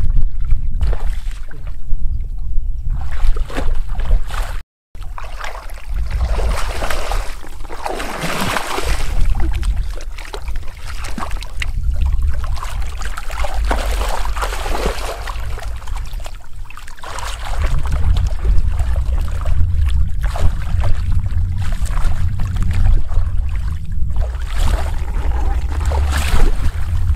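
Shallow muddy water splashing and sloshing as a person wades and gropes through it by hand, over a steady low rumble. The sound cuts out for a moment about five seconds in.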